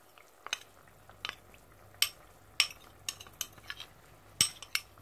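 A spoon stirring cornstarch slurry in a small ceramic bowl, clinking against the bowl's side in about a dozen short, irregular ticks.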